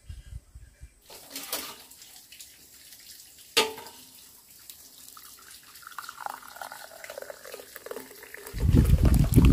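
Dark herbal tea poured from a glass jug into a small glass cup, a trickle of liquid whose ringing tone slides down as the pour goes on. A sharp click comes about three and a half seconds in, and a loud low rumble starts near the end.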